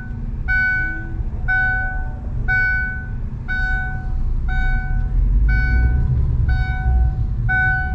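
An electronic warning chime beeps steadily about once a second at one fixed pitch, over the low running rumble of a car being driven slowly, heard from inside the cabin.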